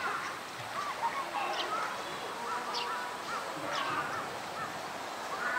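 Birds calling: a quick run of short, repeated chirps and a few brief high calls.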